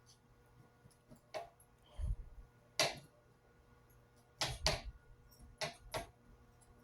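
A fidget spinner knocked about by a kitten: irregular clicks and knocks, with a low thump about two seconds in and the sharpest click just before three seconds.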